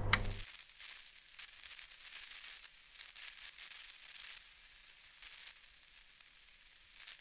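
Faint crackle of crinkling paper, after one sharp click right at the start.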